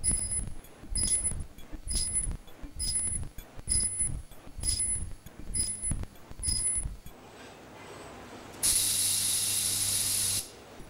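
Robot-held ultrasonic knife slicing a dark loaf of bread in quick, even strokes, about one every three-quarters of a second; each cut brings a short high-pitched whine and a soft low thud. The strokes stop after about seven seconds, and near the end a louder steady hiss with a high whine lasts nearly two seconds.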